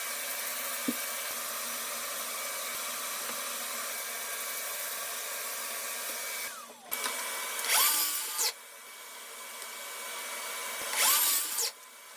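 Electric power drill running steadily with a high whine, then stopping. It is then triggered in two short bursts about three seconds apart, each spinning up and down.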